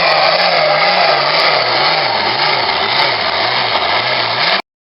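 Pro farm pulling tractor's diesel engine running hard under load, a loud continuous roar whose low note wavers up and down, swinging faster and deeper, about two or three times a second, from midway through. The sound cuts off abruptly near the end.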